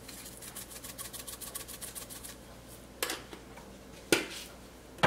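Dried parsley flakes shaken from a small spice jar over a pot, a quick, even rattle that stops a little over two seconds in. Three sharp knocks follow in the last two seconds.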